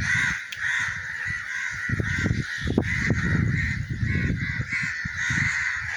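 A large flock of birds calling all at once: a dense, unbroken chatter of many overlapping calls.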